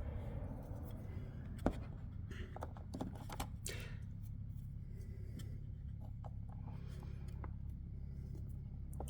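Scattered light clicks and plastic handling noises from working at the zip-tied battery pack of a ride-on toy, with a sharper snap right at the end, over a steady low hum.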